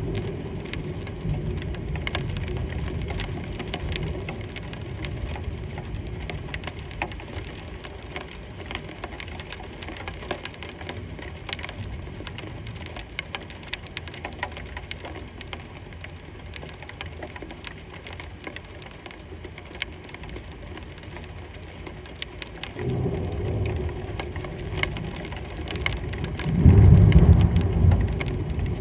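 Rain falling steadily, with many sharp drips of drops landing close by. Thunder rumbles low in the first few seconds, and a louder peal builds about three quarters of the way through and is loudest near the end.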